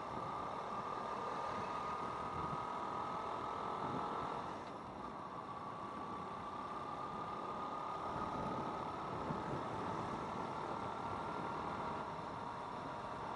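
Motorcycle running at road speed: a whining engine and drivetrain tone over steady road and wind noise. The pitch climbs slowly, breaks off and dips about four and a half seconds in, then climbs again.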